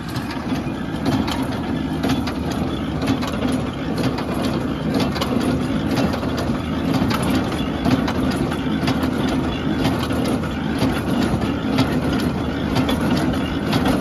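International 37 small square baler running in the field, its working parts clattering with frequent sharp knocks over the steady drone of the Farmall 400 tractor engine that drives it.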